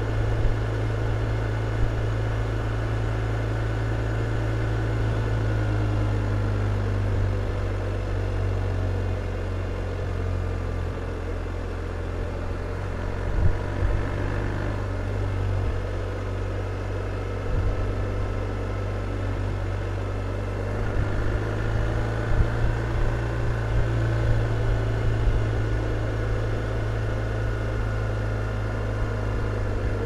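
BMW R1250 RT's boxer twin engine running steadily while the motorcycle cruises at low speed, heard from the rider's seat as a deep, steady hum. A few short louder spikes come in the second half.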